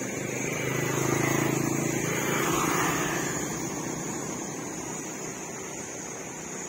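A motor vehicle passing on the road, its engine growing louder to a peak about one to three seconds in and then fading away, over a steady high-pitched drone.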